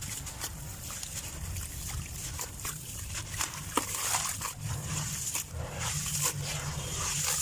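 Clumps of dry sand and dirt crumbling apart, a dense run of irregular small crackles and a grainy hiss.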